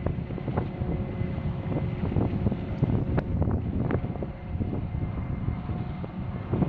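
Steady engine drone from a boat on open water, under wind buffeting the microphone, with short knocks now and then.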